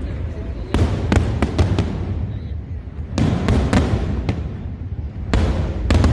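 Aerial fireworks bursting in three volleys of rapid sharp bangs and crackles, about a second in, around the middle, and near the end, over a steady low rumble.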